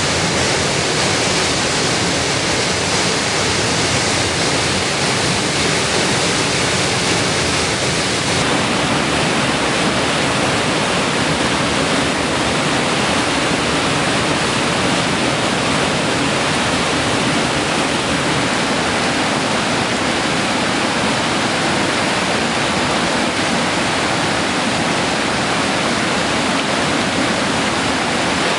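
Creek in flood: swollen, turbulent water rushing over falls and through rapids, a steady loud rush of water. Its tone shifts slightly about eight seconds in.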